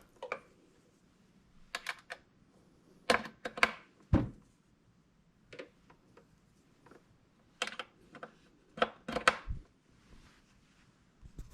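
Scattered clicks and knocks of cable jacks being plugged back in and gear being handled while the effects processor is switched on, with a low thump about four seconds in.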